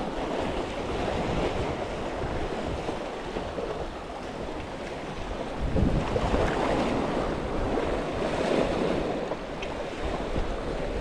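Sea surf washing and breaking over a rocky shoreline in steady surges, the loudest about six seconds in, with wind buffeting the microphone.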